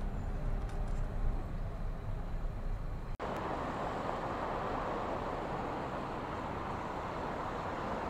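Low rumble of road noise inside a moving car; about three seconds in it cuts abruptly to a steady roadside traffic din.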